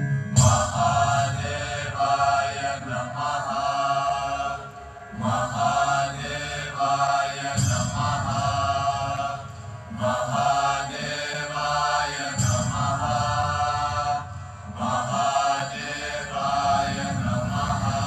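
Devotional chanting of a mantra set to music: voices chant repeated phrases, a new one about every two to two and a half seconds, over a low steady drone.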